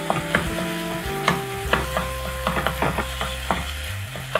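Wooden spatula stirring and clacking against a nonstick wok of minced chicken stuffing as it fries with a light sizzle. Soft background music with held notes plays underneath.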